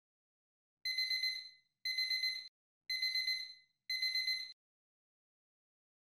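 Phone alarm going off: four bursts of rapid high-pitched beeps, about one burst a second, each burst a quick run of about five beeps. It stops after the fourth burst.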